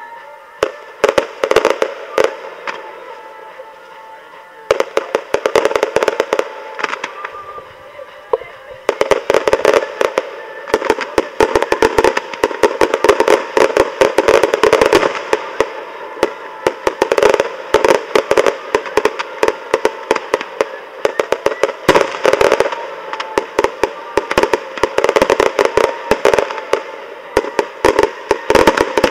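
Fireworks display: rapid popping and crackling of bursting shells. The pops are scattered and thin out about three seconds in, then come almost without a break from about nine seconds on.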